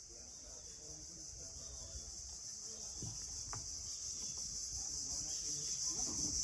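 Steady high-pitched insect chorus, growing louder over several seconds, with a low rumble underneath.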